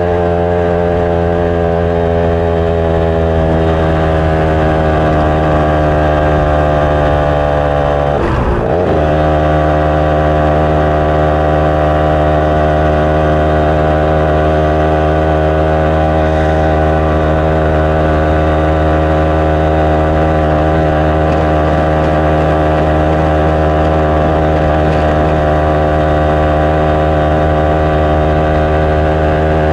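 Yamaha SS Y110's single-cylinder two-stroke engine running steadily while riding. Its pitch creeps up for about eight seconds, dips and recovers quickly, then holds steady.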